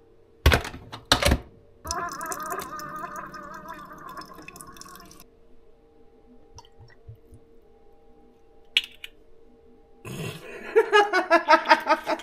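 Two sharp knocks, then liquid gurgling and sputtering in wavering bursts, with a quiet gap in the middle and a quick run of pulses rising in pitch near the end.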